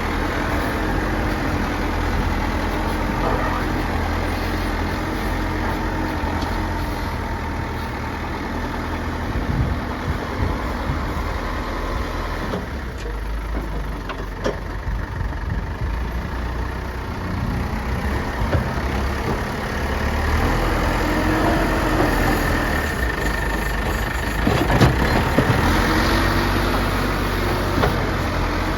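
Heavy diesel engine of an earth-moving machine running under changing load, its pitch rising and falling several times, with scattered knocks and clanks.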